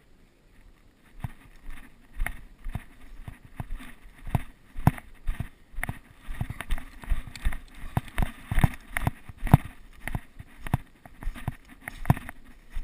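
Footsteps of a player walking through the field, about two steps a second, with knocks and rustles from the gear carried.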